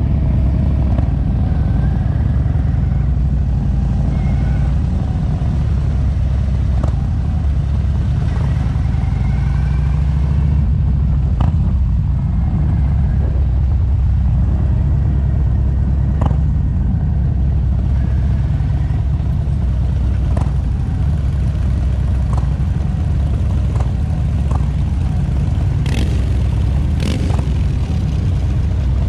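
Many motorcycle engines running together in a steady low rumble as a large group of riders gathers, with a few sharp clicks near the end.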